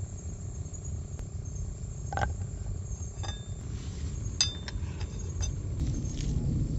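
A spoon knocking and scraping in a metal frying pan as its contents are stirred, with about half a dozen sharp clinks, two of them ringing briefly, over a low steady rumble.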